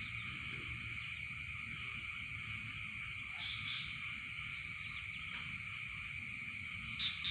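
Night-time insect chorus: a steady high-pitched trill of crickets, with a short run of chirps about three and a half seconds in, over a low rumble.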